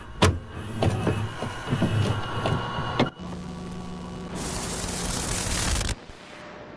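Analog video glitch and static sound effects: a rapid series of crackling clicks and distorted thumps, then a steady electrical hum, with loud static hiss joining about four seconds in. The static cuts off suddenly near six seconds, leaving a faint tape hiss as a VCR starts playback.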